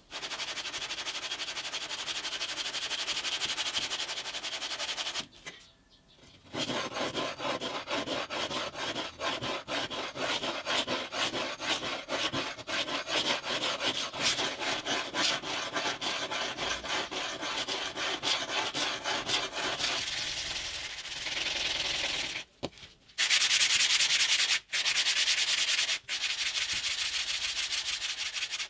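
Steel kitchen-knife blade rubbed rapidly back and forth on wet sandpaper to take off rust: fast, continuous scratchy strokes with a short pause about five seconds in and a few brief breaks near the end.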